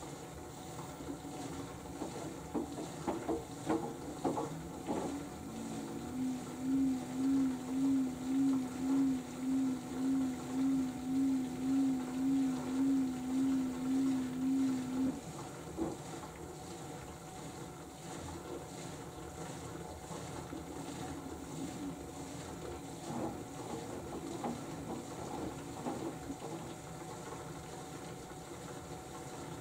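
LG AiDD Steam F4V910BTSE direct-drive washing machine in its final spin: the motor whine rises in pitch for a few seconds, then holds a steady tone that pulses about twice a second. After roughly nine seconds the tone cuts off, leaving a quieter steady running hum.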